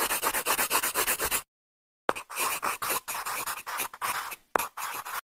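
A scratchy sound effect of rapid strokes, about ten a second, played in three bursts that each start with a sharp click and cut off abruptly into dead silence.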